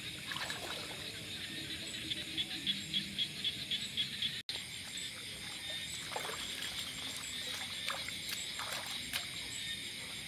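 Night chorus of frogs and insects: a steady high buzzing, with a frog's rapid pulsed call, about five pulses a second, about two seconds in.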